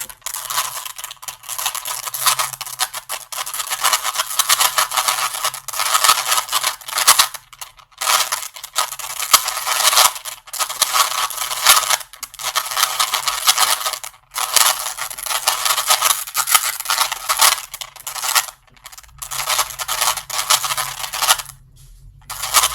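A 3×3×3 Rubik's Cube being turned by hand in quick runs of moves: rapid clicking and scraping of the plastic layers, with short pauses every few seconds.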